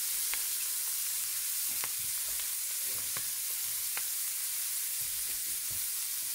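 Butter-stuffed, shell-on tiger prawns sizzling on a hot grill pan as the butter filling melts: a steady hiss with a few faint pops.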